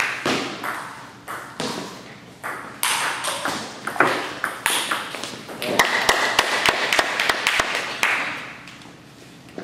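Table tennis rally: a celluloid ping-pong ball clicking off paddles and bouncing on the table in quick succession, with voices around it. The rally stops about eight seconds in.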